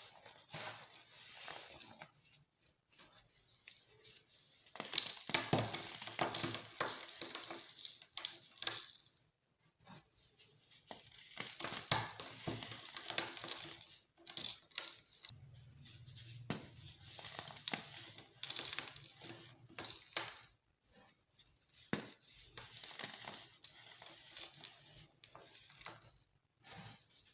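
Dyed baking soda clumps being crushed, a dry crisp crackling and crunching that comes in irregular bursts with short pauses between them.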